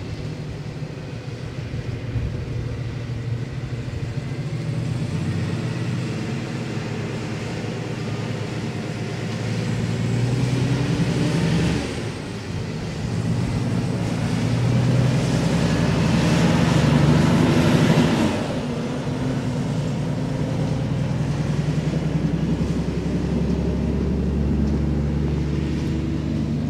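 A vehicle engine running steadily, growing louder through the middle and then easing back, with a short dip about twelve seconds in.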